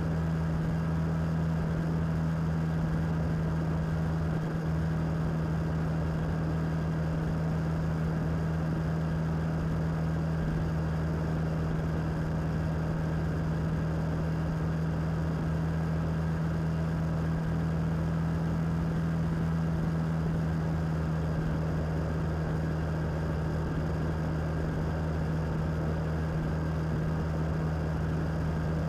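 Suzuki DL650 V-Strom's V-twin engine running at a steady cruise, an unchanging hum with road and wind noise underneath.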